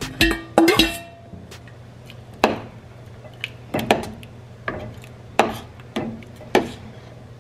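Stainless steel bowl and spoon clanking against the rim of a stainless steel stockpot as the last of the soup is tipped in, then a metal ladle knocking against the pot's side every half second to a second while stirring thick soup. A steady low hum runs underneath.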